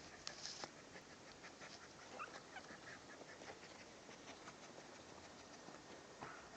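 Puppies play-fighting and mouthing each other: faint high squeaks and grunts mixed with scattered small clicks of teeth and claws.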